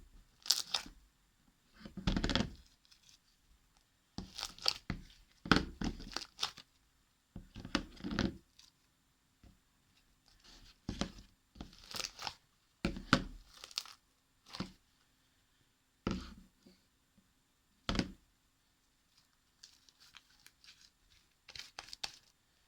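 Handmade glue slime being squeezed, stretched and pulled apart by hand, giving short irregular squelching, crackling and tearing sounds with pauses between them.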